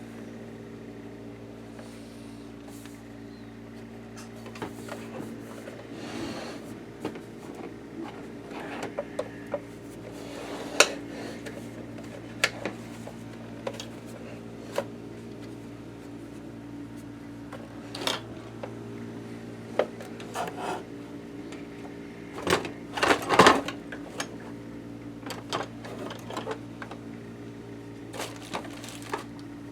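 Scattered clicks and knocks of tools, screws and plastic and metal parts being handled while a Janome ME4014 sewing machine is taken apart. A cluster of louder knocks comes near the end. A steady low hum runs underneath.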